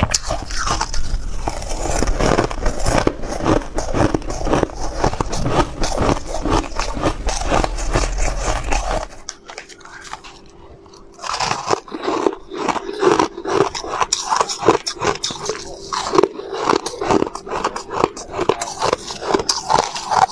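Close-miked biting and chewing of soft white ice: dense, rapid crunching and crackling. It pauses briefly about nine seconds in, then resumes with a faint steady hum underneath.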